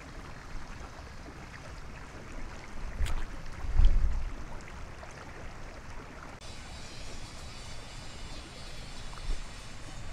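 Water sloshing and lapping around a person wading chest-deep while handling a net, with a low rumble that swells about three and four seconds in.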